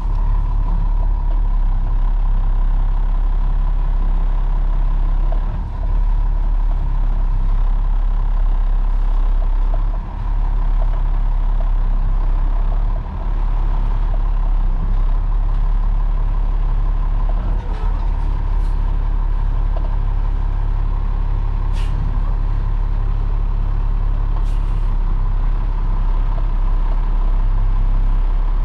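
Heavy truck's diesel engine running at low speed, heard from inside the cab as the truck creeps up onto a trailer with the clutch and brake feathered. A steady whine sits over the engine rumble, with two short sharp clicks near the end.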